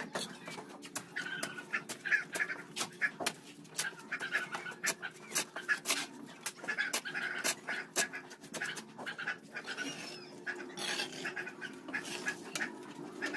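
Mason's trowel scraping and tapping wet cement mortar on top of concrete hollow blocks: irregular clicks and scrapes as the mortar is spread and a block is set.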